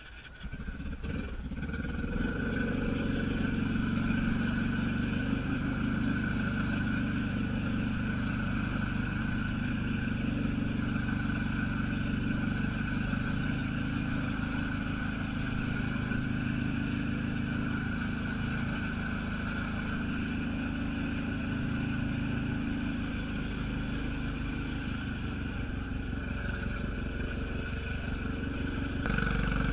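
Honda Rubicon ATV's single-cylinder engine running steadily under way while the machine floats in a creek, coming up in level about a second or two in.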